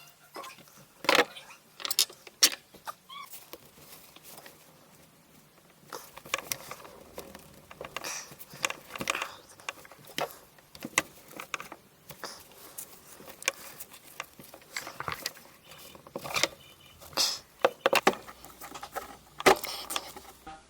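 Hands working on a MacBook Pro power adapter: irregular clicks, taps and scrapes of hard plastic and small tools, with the sharpest clicks near the start and toward the end.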